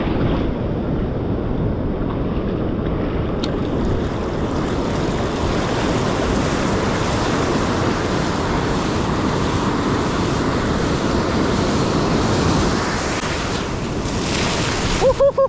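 Steady rush of ocean surf, with wind on the microphone.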